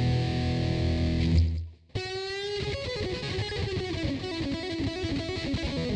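Electric guitar played through the BOSS BR-900's COSM guitar-amp modelling, patch P07. A sustained chord is cut off about one and a half seconds in. After a brief gap, a new note starts about two seconds in, followed by a moving single-note line.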